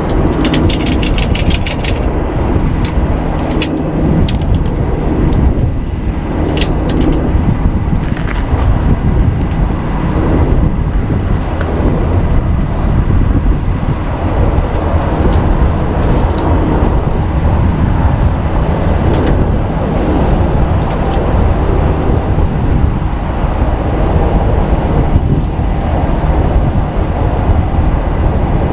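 Steady low rumble of a running heavy truck with road and traffic noise, with a quick run of sharp clicks about a second in.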